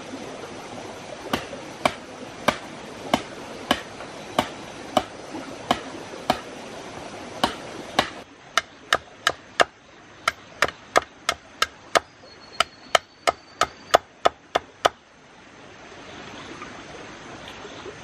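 Large knife chopping bamboo against a wooden log: sharp knocks about one every 0.6 s at first, then a faster run of about three a second that stops about 15 s in, over a steady rushing background.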